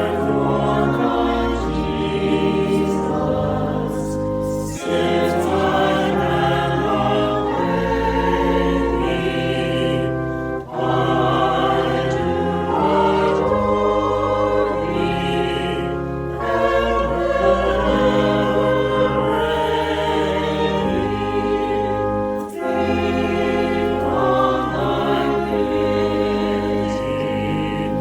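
Choir singing a hymn with organ accompaniment, in sustained phrases about six seconds long with short breaks between them.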